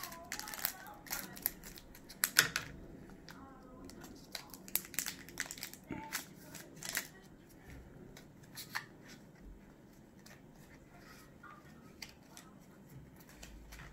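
Scissors snipping through a foil Pokémon booster pack wrapper, with crisp clicks and crinkling of the foil. After about seven seconds these thin out to quieter rustling as the cards are handled.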